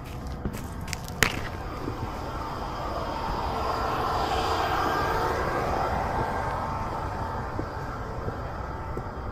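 An aircraft passing overhead, swelling over a few seconds and then fading away. A sharp click comes about a second in, over a constant low rumble of handling noise from a camera worn on the cat's chest.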